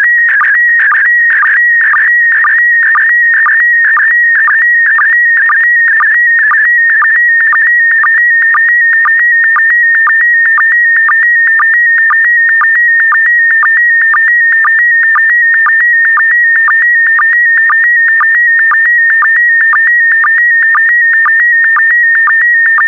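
Slow-scan TV signal in PD120 mode being transmitted: a loud, continuous high electronic tone that warbles slightly as it encodes image brightness. A brief drop in pitch about twice a second is the sync pulse marking each new pair of picture lines.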